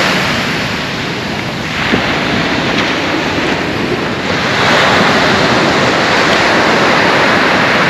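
Ocean surf washing onto a beach, a steady rush that eases about a second in and swells again about halfway through, with wind on the microphone.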